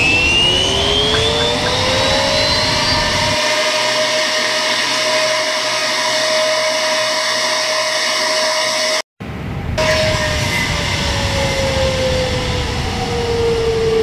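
A320 main-wheel brake cooling fan being run as a test after the wheel change: its whine rises in pitch as it spins up, then holds steady, over a steady background rumble. After a brief dropout about nine seconds in, the whine slowly falls in pitch as the fan winds down.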